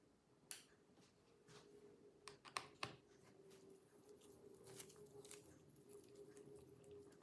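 Near silence: room tone with a faint steady hum and a few soft clicks and scrapes of a screwdriver working the laptop battery's retaining screws.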